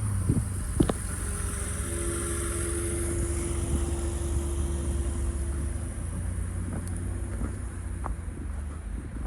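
Steady low rumble of a car running, with a few light clicks.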